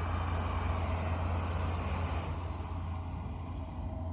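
Camp stove burner running under a stainless steel pot of boiling water, a steady rushing noise with a low rumble. The higher hiss fades about two seconds in.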